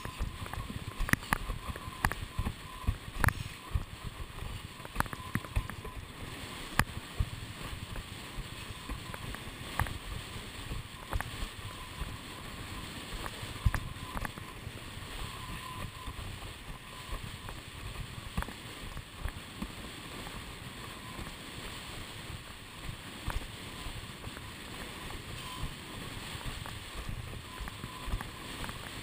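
Windsurf board planing fast over choppy water: a steady rush of water and wind, broken by frequent sharp, irregular slaps as the board hits the chop.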